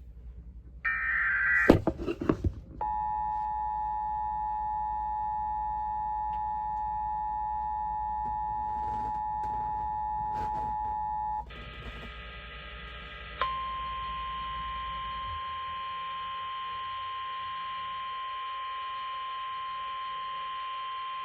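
Emergency alert tones received over the radio: the tail of a SAME digital header burst and a click, then the two-tone EAS attention signal held steady for about nine seconds, then after a short break the single-tone NOAA Weather Radio warning alarm held for about nine more seconds. The tones announce a severe thunderstorm warning message.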